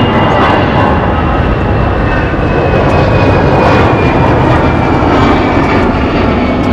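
Jet airliner's engines, loud and steady, with a faint high whine sliding slowly down in pitch.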